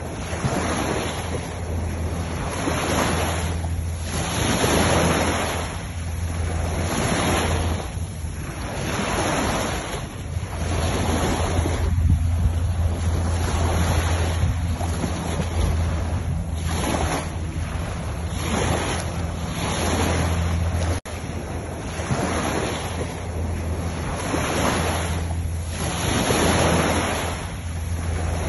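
Sea surf washing up on a sandy beach, swelling and falling every couple of seconds, with wind rumbling on the microphone. The sound drops out for an instant about three quarters of the way through.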